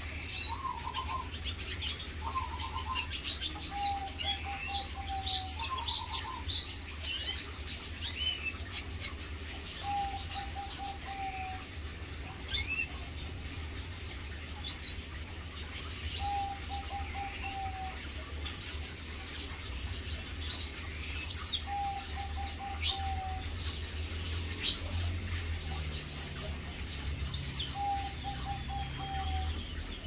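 Male red siskin singing: quick twittering with high trills and short downward chirps, in bursts throughout. A lower, rapid pulsed note from another bird repeats every five or six seconds.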